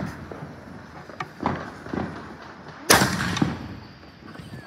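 Fireworks going off: a string of sharp bangs and pops, the loudest just before three seconds in, followed by a smaller crack.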